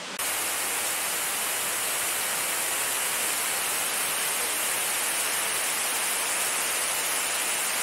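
Steady rushing of a waterfall, an even hiss with most of its weight in the high end, picked up by an action camera's built-in microphone. It starts abruptly just after the beginning.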